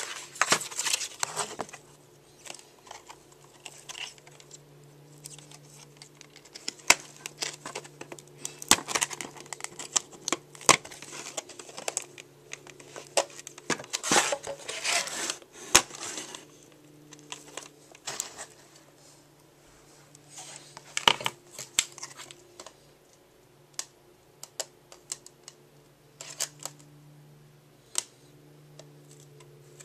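Plastic shrink wrap crinkling and tearing as it is pulled off a VHS tape case by hand: irregular crackles and rips that come in bouts, busiest at the start, through the middle and again about two-thirds of the way in.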